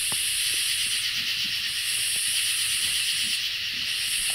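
Insect chorus: a dense, steady high buzzing with a shriller layer above it that swells and drops out in stretches of about a second and a half, over a few faint scattered ticks.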